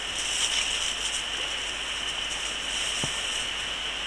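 Steady rush of a shallow stream flowing over gravel, with a steady high-pitched hiss above it. There is one soft knock about three seconds in.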